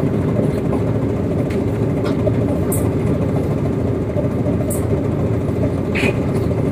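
Tugboat's diesel engine running steadily under load while towing a barge, a continuous low drone heard from the deck near the exhaust stack, with a few brief faint clicks over it.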